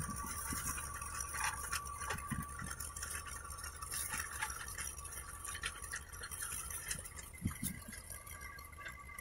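Tractor engine running steadily while driving a rear-mounted rotary tiller through garden soil, with scattered ticks and rattles. It grows slightly fainter as the tractor pulls away.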